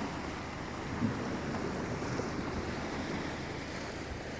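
Steady rush of wind and Atlantic surf, with wind buffeting the microphone and a short bump about a second in.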